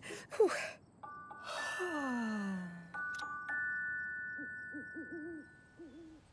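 Soft held chime notes over a long, breathy sound that slides downward, like a sleepy yawn, followed by an owl hooting softly several times.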